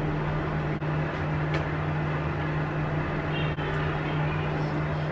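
Steady low machine hum over an even noise, unchanged throughout: a running appliance in the room. Faint chewing sounds come as a bun is bitten, about three and a half seconds in.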